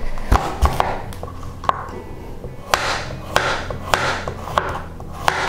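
A kitchen knife slicing a korinkii, a pumpkin eaten raw, on a plastic cutting board. Irregular sharp knocks of the blade meeting the board come with rasping sounds of the blade cutting through the firm flesh.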